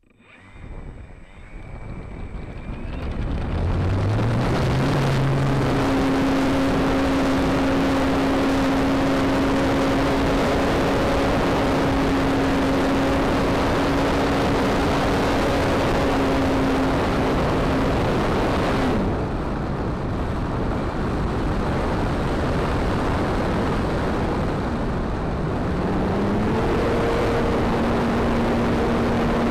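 Seagull 40 RC model airplane's motor and propeller heard from a camera mounted on the plane, under heavy wind rush: it builds up over the first few seconds as the throttle opens for the takeoff run, then drones at a steady pitch in flight. About two-thirds of the way through the pitch drops as the throttle is eased, and it rises again near the end.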